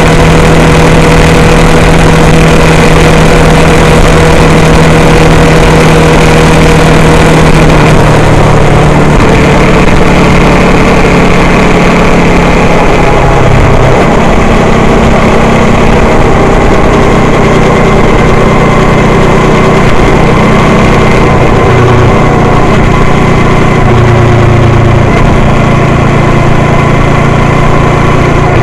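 A car's engine hum and road noise heard from inside the cabin, loud and steady, recorded by a dashcam microphone. The engine's low hum shifts up and down in pitch a few times as the car drives along.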